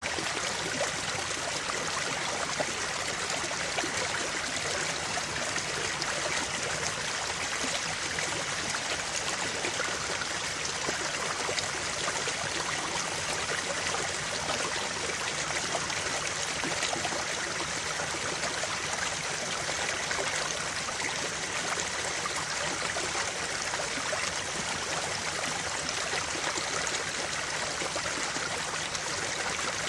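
Creek water flowing steadily over rocks, a constant rushing and trickling.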